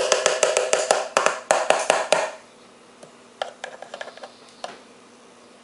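Rapid tapping and rattling of a plastic tub as cattail pollen is knocked out of it into a measuring spoon: a dense flurry of taps for about two seconds, then a few lighter taps a second later.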